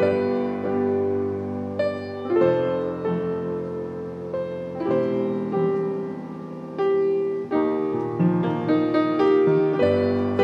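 Fritz Dobbert grand piano played solo: slow, sustained chords with a melody over them, new chords struck every second or two and quicker notes near the end.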